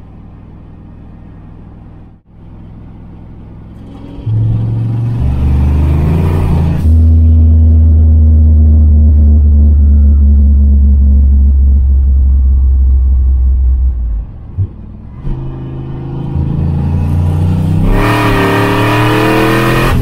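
Turbocharged 5.0 V8 of a Fox-body Mustang heard from inside the cabin, pulling hard twice: the engine rises in pitch with a rush of turbo air noise, holds a loud steady drone in between, and gives two short sharp pops when the throttle eases about two thirds of the way through.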